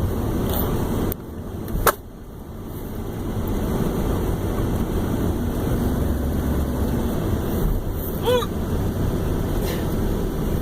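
A man hiccuping: two short, sharp hiccups about six seconds apart, over the steady road rumble inside a moving truck.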